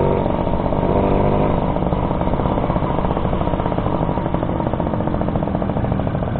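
Suzuki RC100's two-stroke engine running as the motorcycle rides along at a steady pace; about a second and a half in its sound turns to a rapid, even pulsing.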